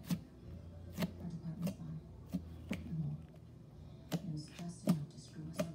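Blue slime being poked and squeezed by fingers, giving a series of sharp pops and clicks at uneven intervals as air pockets in it burst.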